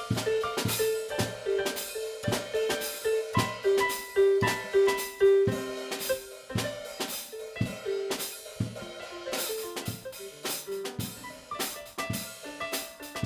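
Instrumental music: a drum kit playing a busy beat of quick strikes under a run of short, repeated pitched notes.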